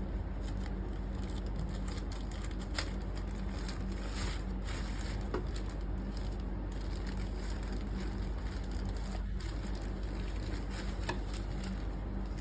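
Scissors cutting and working at a package's wrapping: rustling with a few sharp snips, over a steady low hum.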